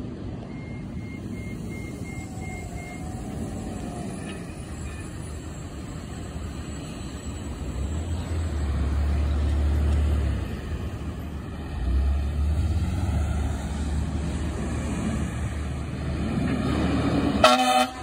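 A fire engine's diesel engine and passing traffic rumble as the 2022 Pierce Enforcer engine pulls through, growing louder about eight seconds in. Near the end, the fire engine's horn gives one short, loud honk.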